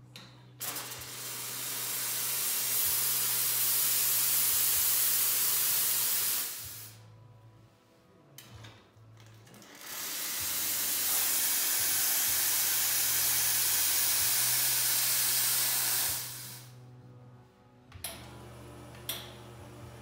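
Astoria Gloria SAE 2-group espresso machine's steam wand opened into the air, hissing loudly in two long blasts of about six seconds each with a pause between. A steady low hum runs underneath, and two short clicks come near the end.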